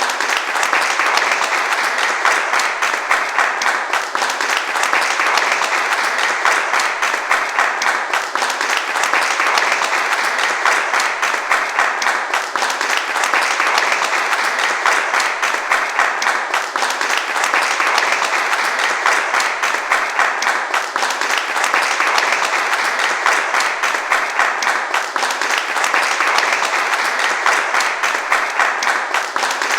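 Crowd applause: many hands clapping densely and steadily, with a slight dip about every four seconds.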